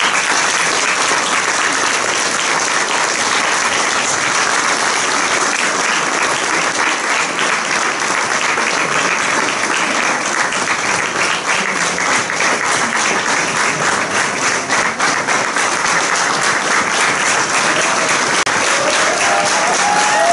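Steady applause from a crowd, many hands clapping at once, holding at the same level throughout.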